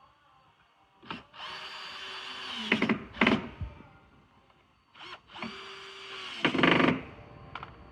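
Power drill driving screws in two runs, a steady motor whine that ends each time in a few loud clicks.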